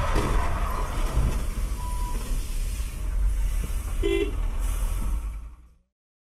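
Road and engine rumble heard from inside a moving car, with a brief car horn toot about four seconds in; the sound cuts to silence shortly before the end.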